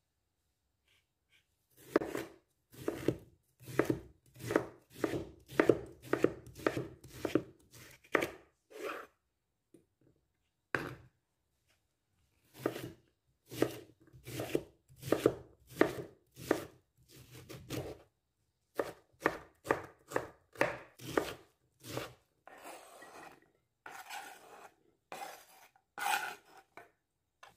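Kitchen knife chopping a peeled beetroot on a wooden cutting board: quick runs of blade strikes against the board, broken by short pauses. Near the end come several longer scraping sounds as the diced beetroot is pushed off the board onto a plate.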